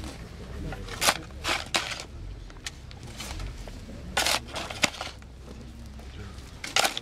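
A spade digging into soil and tipping earth into a grave: about six short scrapes and falls of dirt.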